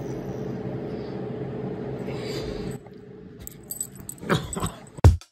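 A black Labrador retriever whining for attention. After about three seconds his collar tags jingle as he pushes up close, and a drum beat starts at the very end.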